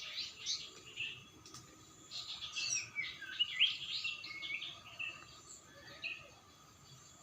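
Small songbirds chirping and twittering, many quick high notes overlapping, thinning out after about four seconds.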